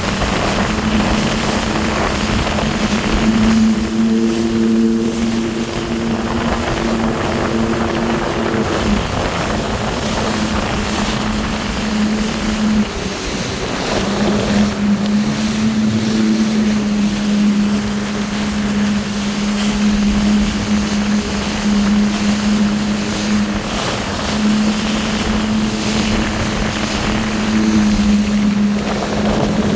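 Jet ski engine running steadily at cruising speed: a constant drone that drops out briefly about halfway through, then returns. Under it, rushing water and wind buffeting the microphone.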